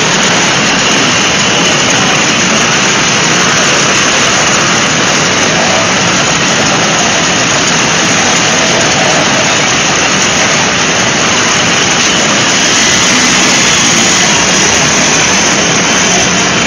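Several vintage two-stroke motor scooters, Vespas among them, running at low speed as they ride past one after another: a loud, continuous engine din with no single engine standing out.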